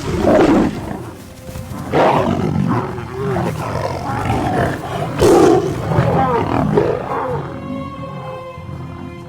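Male lions roaring repeatedly in overlapping calls. Soundtrack music comes in with sustained tones near the end as the roaring fades.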